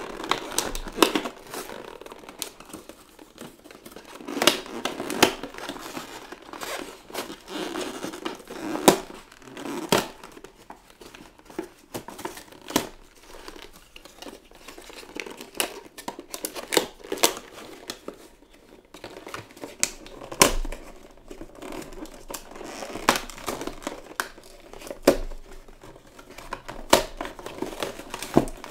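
Action figure packaging being opened by hand: plastic and cardboard crinkling and tearing, with many sharp, irregular clicks and snaps.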